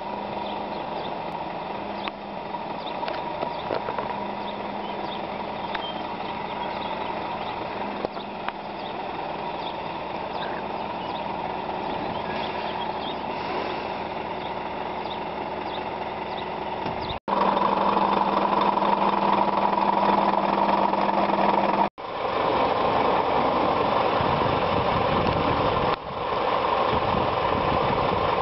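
Scania G490 truck's 13-litre straight-six diesel engine running steadily at low revs, with no revving. It turns suddenly louder after a cut about two-thirds of the way in, with two short breaks near the end.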